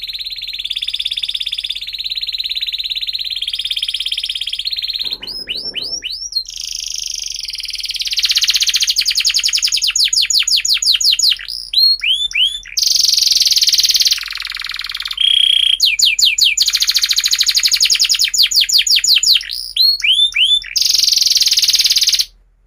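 Domestic canary in full song: a long song of buzzing rolling trills and fast runs of repeated notes, broken several times by short runs of quick rising whistles. It cuts off suddenly near the end.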